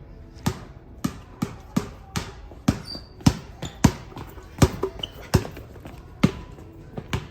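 An inflated rubber ball bouncing repeatedly on a hard floor, about two bounces a second at an uneven pace, each bounce a sharp hit with a short ring.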